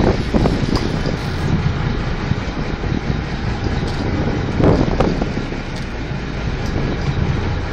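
Sportfishing boat's engine running steadily, with wind and water noise, and brief louder pitched sounds just after the start and about five seconds in.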